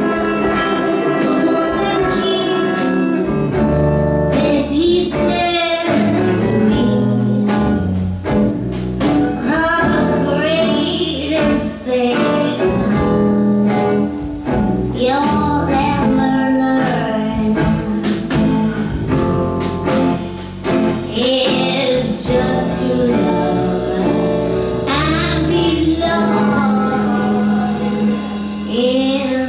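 Live jazz band playing a slow ballad: a sung melody with vibrato over acoustic guitar chords and bass.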